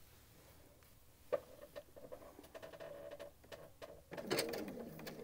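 A few faint clicks of fabric and machine handling, then about four seconds in a Baby Lock Destiny computerized sewing machine starts stitching, its motor running steadily.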